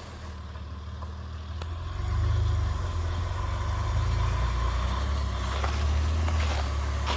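A motor vehicle's engine running steadily, a low hum that grows louder about two seconds in.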